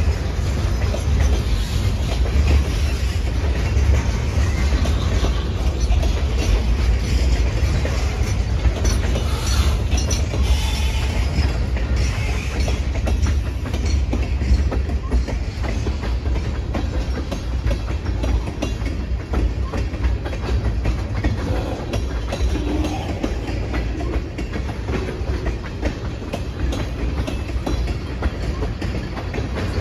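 Freight train's boxcars and tank cars rolling past on steel wheels: a steady heavy rumble with continual clicking of wheels over the rail.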